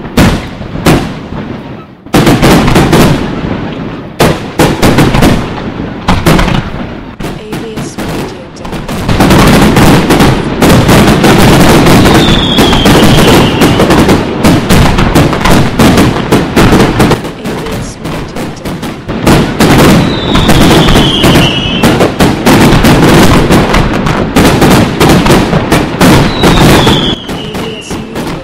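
Fireworks display: a dense, very loud barrage of aerial shell bursts and crackling reports, heaviest from about a third of the way in, with three short falling whistles.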